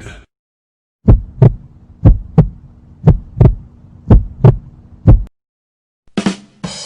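Heartbeat sound effect: five double thumps, lub-dub, about one a second, over a faint steady hum. Near the end another effect starts, with a short sharp hit and then a bright, ringing sound.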